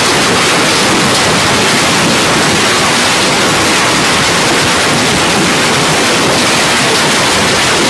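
A heavy hailstorm: hail and rain pelting down on the pool water, the paving and the plants in a loud, unbroken hiss.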